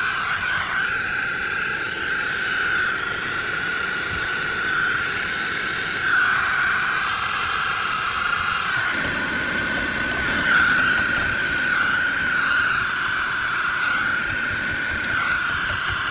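Handheld gas torch flame running steadily with a constant high whistle, heating a copper pipe joint for soldering. The lower part of its roar fills out about nine seconds in.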